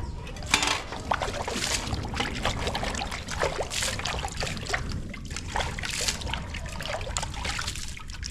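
Water trickling and splashing, with many short clicks and rustles throughout.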